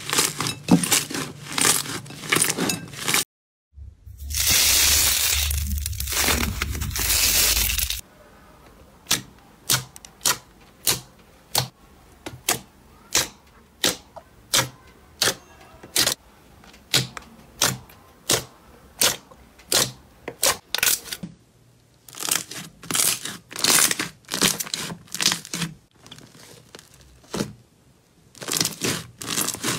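Thick slime squeezed and poked by hand, giving a series of sharp pops and squelches as trapped air is pressed out, about one to two a second. A loud steady rushing noise fills a few seconds near the start.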